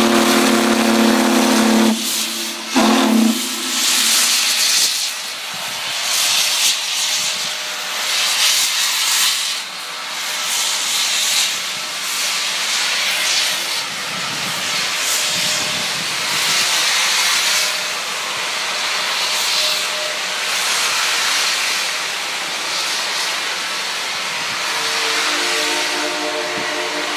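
Union Pacific Big Boy 4014 steam locomotive blowing a long, deep whistle blast, then a short second blast about three seconds in. After that, loud uneven steam exhaust chuffs and hiss as it works away from a start, with a softer steady tone sounding near the end.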